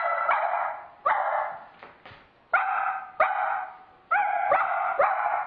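A man imitating a dog's barking with his voice: a string of about nine short, sharp barks, some singly and some in quick pairs.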